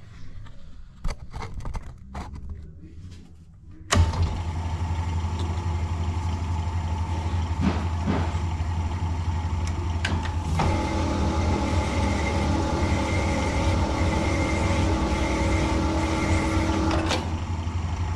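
A few light metal clicks, then about four seconds in a Sunnen honing machine's motor starts and runs with a steady hum. From about ten and a half to seventeen seconds a higher steady whine joins in as a new rocker's bush is honed to size on the mandrel.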